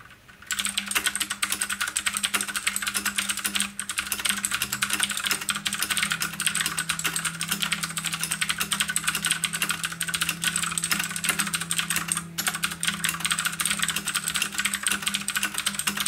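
Fast, continuous typing on an Ajazz K680T mechanical keyboard with clicky blue switches: a dense stream of sharp key clicks that starts about half a second in.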